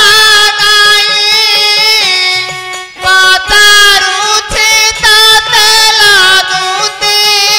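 Odia folk-theatre song: a voice singing held, ornamented notes over instrumental accompaniment, with drum strokes.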